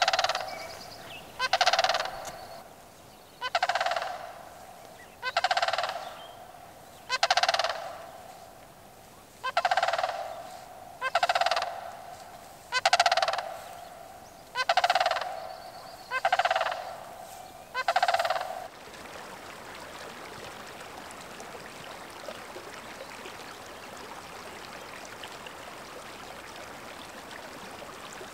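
Sandhill crane calling over and over, a loud rolling, rattling call about every two seconds, eleven or so in all. The calls stop about two-thirds of the way through, and a steady rush like flowing creek water follows.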